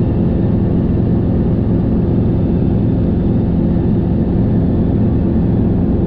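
Helicopter in flight: the engine and rotor make a steady low drone with several even tones, unchanging throughout.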